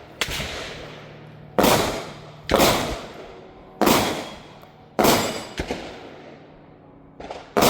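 Gunshots ringing out at a shooting range: about six sharp reports at irregular intervals, each followed by a long echoing decay.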